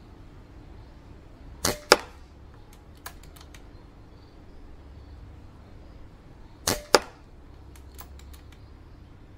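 Two shots, about five seconds apart, from an Evanix Vortex .177 non-regulated PCP air rifle firing 20 gr slugs. Each is a sharp crack with a second, sharper crack a fraction of a second after it, followed by a few faint clicks.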